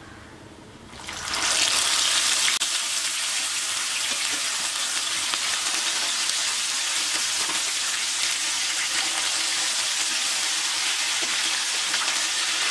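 Chicken pieces dropped into hot coconut oil: the oil bursts into loud sizzling about a second in and keeps up a steady frying hiss. There is one brief click a couple of seconds in.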